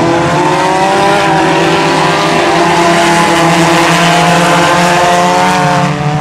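Several four-cylinder compact race cars' engines running hard together in a pack, their overlapping pitches rising and falling against one another. The sound drops off slightly near the end.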